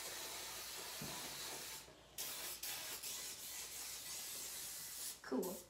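Aerosol cooking spray hissing as it is sprayed into a metal baking pan to grease it, in a long burst, a short pause about two seconds in, then further spurts. A brief voice sound comes near the end.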